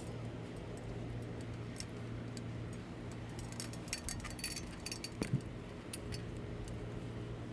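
Light metallic clicks and rattles from an aluminium step ladder being handled, bunched in the middle with one thump about five seconds in, over a steady low hum.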